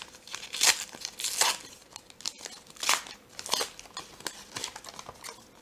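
Foil wrapper of an Upper Deck hockey card pack being torn open and crinkled by hand while the stack of cards is pulled out, in a series of irregular crackling rustles.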